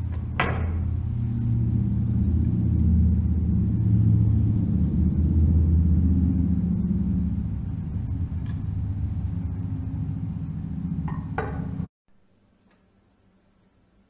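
A small brass bell struck a few times with a rod, sharp strikes near the start, about eight and a half seconds in and again near the end, over a steady low rumble. The sound cuts off abruptly about twelve seconds in, leaving faint room tone.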